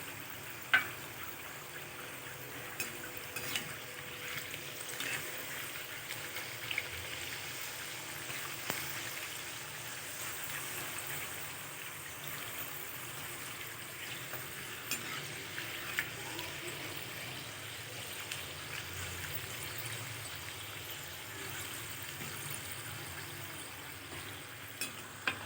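Methi puris deep-frying in hot oil: a steady sizzle with scattered sharp taps, the loudest about a second in.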